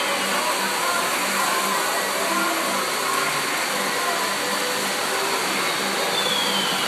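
Steady whirring mechanical noise with a faint hum from a running model train layout and its motorized miniature carnival rides.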